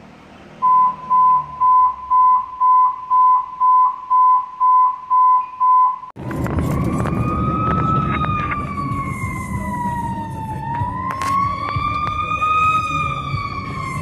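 A string of short, even electronic beeps at one pitch, about two a second. About six seconds in it gives way to a fire engine's siren wailing, slowly rising and falling, heard over road noise from a car following it.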